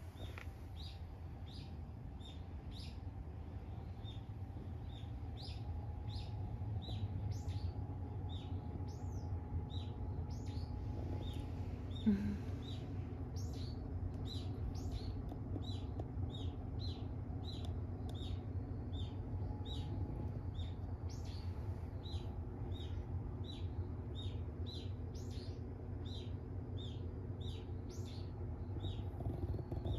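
A bird chirping over and over, short high chirps about two a second, over a steady low rumble. A single sharp knock sounds about twelve seconds in.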